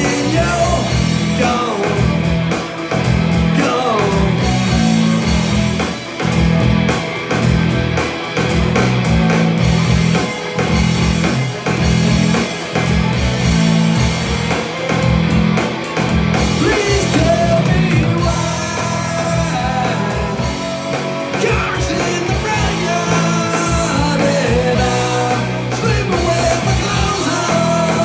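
Rock music with a singer and electric guitar over a steady beat.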